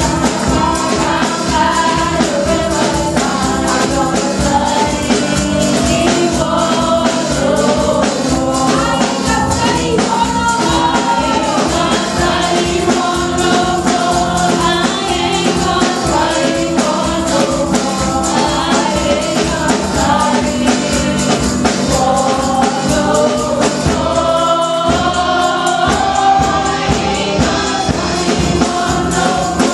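Gospel praise team of several voices singing into microphones over a band accompaniment with a steady beat; the low accompaniment drops out for a moment near the end.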